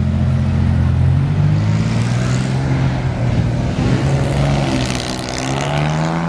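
Meyers Manx dune buggy's engine revving as the car pulls away. Its note steps up about a second in, drops around two seconds as it changes gear, then climbs steadily again.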